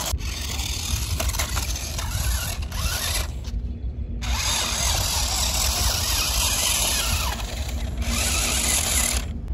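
Electric motors and plastic gearboxes of a toy RC rock crawler whirring, the whine rising and falling as the throttle changes, with the truck flipped over in sand.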